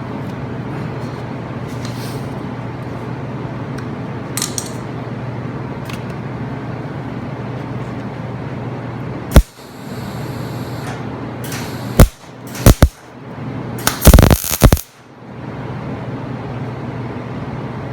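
Electric welding arc struck in several short, loud crackling bursts over a steady electrical hum: tack welds on a cracked steel mower frame. The first burst comes about nine seconds in, a few more follow quickly, and the longest lasts about a second.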